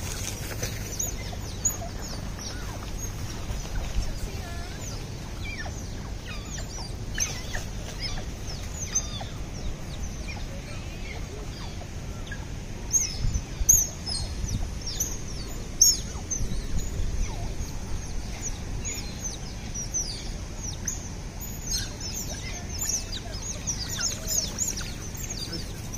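A family of smooth-coated otters calling to each other with many short, high, falling chirps and squeaks. The calls come scattered throughout and are thickest about halfway through and near the end, over a steady low background noise.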